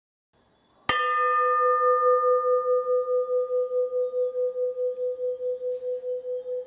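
Hanging bronze temple bell struck once about a second in, then ringing on with a steady tone that pulses in loudness several times a second and slowly fades.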